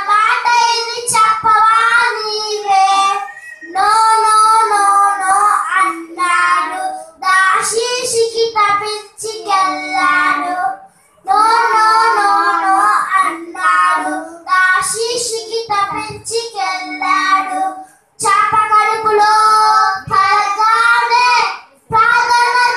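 Two young boys singing a song together into microphones, in phrases broken by short pauses.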